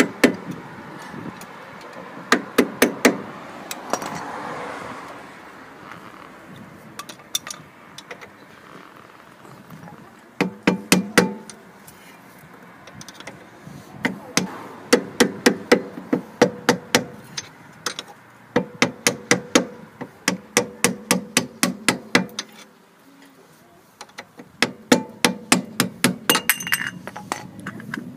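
A hammer striking a flat screwdriver wedged under a rear wheel hub's metal dust cap, sharp metallic taps in several runs of quick strikes with pauses between, driving the cap off to reach the axle nut for a wheel bearing replacement.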